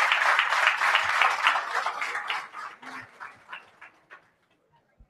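Audience applauding, a dense patter of claps that thins out and dies away about three to four seconds in. A single short knock near the end.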